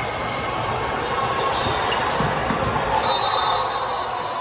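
Echoing gym noise of an indoor coed volleyball game, with a ball thudding now and then. A high steady tone starts about three seconds in.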